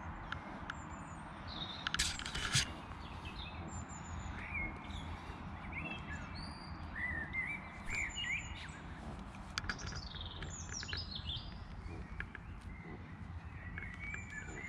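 Small birds chirping and peeping in many short calls, some overlapping, with two sharp clicks about two seconds in, over a low steady background rumble.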